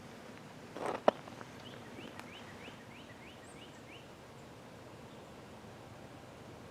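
A sharp click about a second in, then a quick run of about eight short rising chirps from a bird, over a faint steady background.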